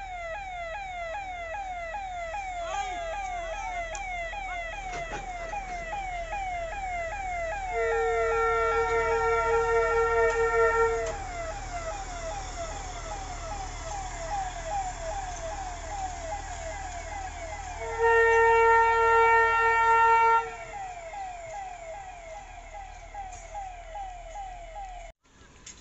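Warning siren of a railway track maintenance vehicle running on the line, giving a repeating rising whoop about twice a second. It is broken twice by long steady horn blasts of a few seconds each, about eight seconds in and again about eighteen seconds in; the horn blasts are the loudest part.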